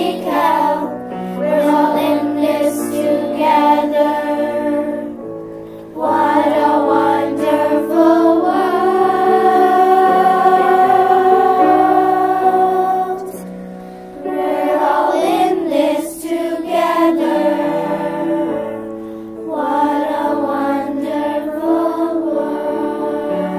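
A group of children singing a song together over an instrumental backing, with one long held sung note about eight seconds in.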